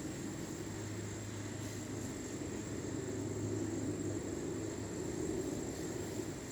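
A steady low droning rumble from the sky, with no aircraft in view, swelling slightly in the middle and holding a low hum underneath for a few seconds.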